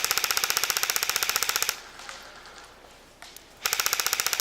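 Airsoft rifle firing full-auto in two rapid bursts of sharp clicks, about twenty shots a second. The first burst lasts under two seconds, and the second starts after a short pause near the end.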